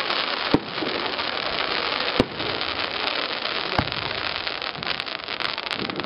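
Fireworks display: three aerial shells burst with sharp bangs, about half a second, two seconds and nearly four seconds in, over a steady dense crackling of the falling golden sparks.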